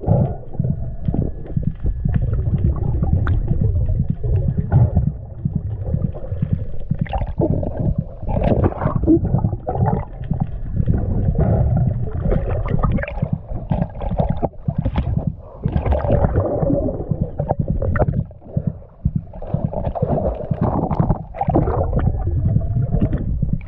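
Water churning and gurgling around an action camera's waterproof housing on a speargun, muffled and rumbling, surging and dropping irregularly as the diver moves. The rig breaks the surface partway through, bringing splashing.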